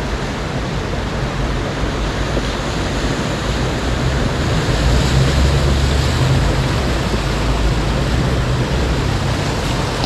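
Four-wheel-drive truck engine running low under a steady rush of wind and tyre noise, swelling a little about four seconds in.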